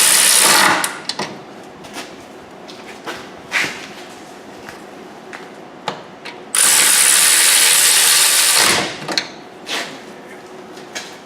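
Power wrench running down the hub bearing bolts in two runs of about two seconds: the first stops just after the start, and the second begins about six and a half seconds in and winds down at its end. Light metal clicks and knocks of tools and sockets come in between.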